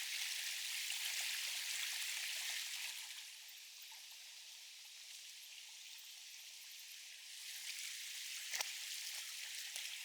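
Flowing stream water, a steady rushing hiss that drops lower for a few seconds mid-way and swells back up, with one sharp click near the end.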